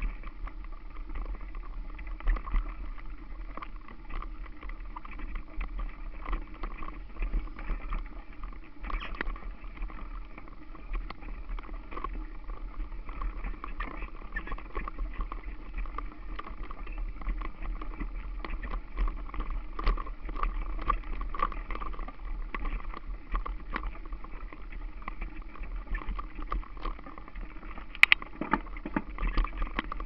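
Mountain bike rolling slowly over rough grass, heard through a camera mounted on it: a steady rumble with constant small rattles and clicks, and one sharp knock near the end.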